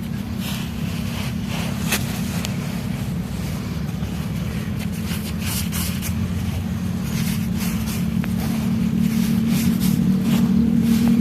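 Crisp, irregular crunches of something dry and crumbly being bitten and chewed, over a louder steady low rumble that slowly grows.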